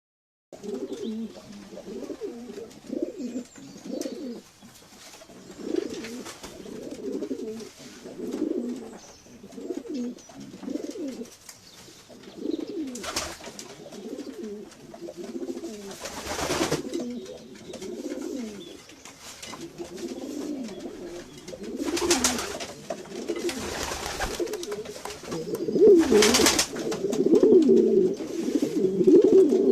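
Domestic pigeons cooing over and over in low, throaty calls that overlap and grow louder toward the end. Several brief rustling noises come between the calls.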